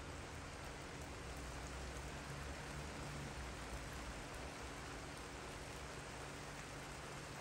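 Steady rain falling on a garden and a wooden deck: an even hiss with a low rumble underneath.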